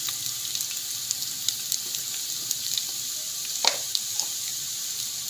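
Chopped garlic and ginger frying in hot oil and ghee for a tadka: a steady sizzle with scattered small pops, and one brief louder sound about two-thirds of the way through.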